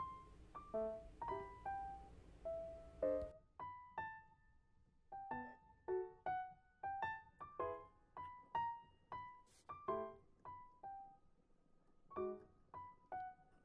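Background piano music: a light melody of single struck notes, each ringing briefly and fading. A faint hiss under the first few seconds stops.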